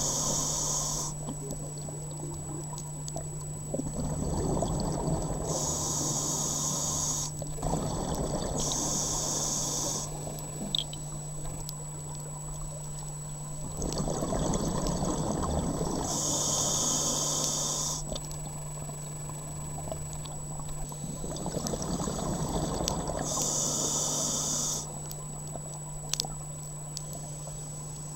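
Scuba diver breathing through a regulator underwater: about four slow breaths, each a hissing draw on the regulator together with a spell of exhaled bubbles, over a steady low hum.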